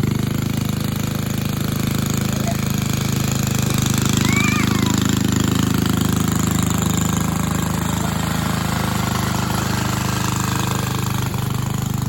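1961 Cooper Klipper reel mower's 2.5-horsepower Briggs & Stratton single-cylinder engine running steadily, with a brief high chirp about four seconds in.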